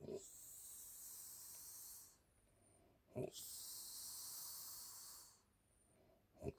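An elderly woman snoring in her sleep: a short, low snort, then about two seconds of hissing breath and a brief pause, repeating roughly every three seconds.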